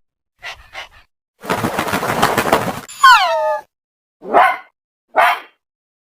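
Animal-like creature sound effects: two faint short sounds, then a rasping growl lasting over a second, a loud cry that falls in pitch, and two short cries near the end.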